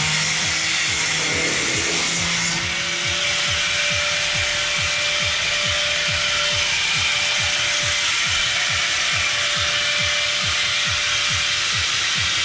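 A power saw cutting steadily through the rusted sheet steel of a VW Type 3's C-pillar, with background music carrying a regular low beat.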